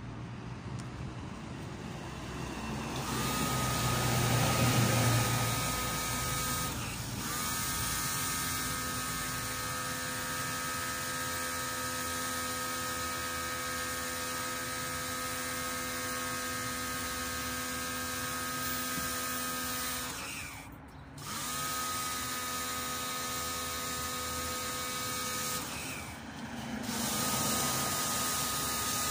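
Black & Decker BXPW1300 electric pressure washer running with a steady motor-and-pump whine over the hiss of the spray. It starts about three seconds in and cuts out briefly three times, starting again each time.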